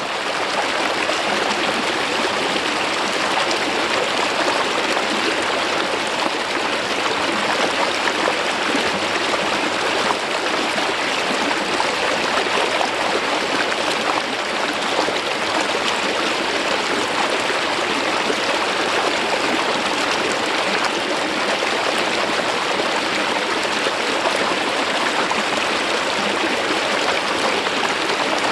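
Mountain stream water flowing smoothly over a rock face: a steady, even rush of running water.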